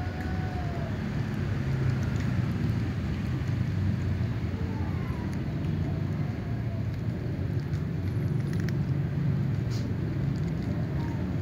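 A steady low rumble, with faint clicks of cats crunching dry kibble over it.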